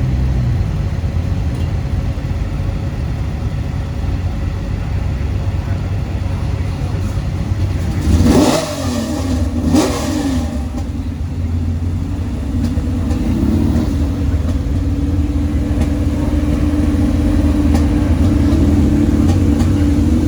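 Car engines running, with two brief louder sweeps in pitch about eight and ten seconds in, then a steady engine hum from about fourteen seconds on.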